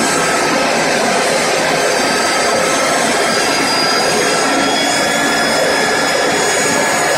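Electric core cutting machine (diamond core drill) running steadily while boring into concrete: a loud, even motor whine with several high tones over the grinding noise.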